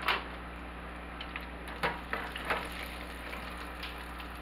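Catfish and shrimp hush puppies deep-frying in a small saucepan of hot oil: a steady sizzle, with a few light knocks of a utensil against the pan.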